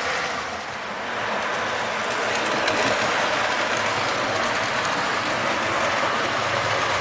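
Model railway train running steadily along the track, its wheels rattling over the rails and its small electric motor whirring. It runs smoothly across the newly laid level crossing.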